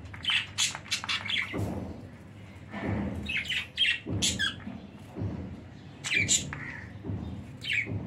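Budgerigars giving short, sharp chirps and squawks in quick clusters, several times.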